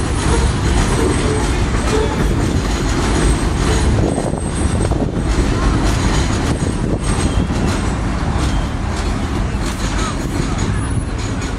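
New York City subway train rolling along a steel elevated structure, a steady rumble of wheels on the rails and trestle.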